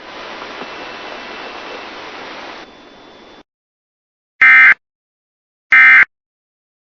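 Radio static hiss that drops lower after about two and a half seconds and cuts off, then after a moment of silence two short, loud, identical bursts of Emergency Alert System data tones about a second apart: the end-of-message code that closes the alert.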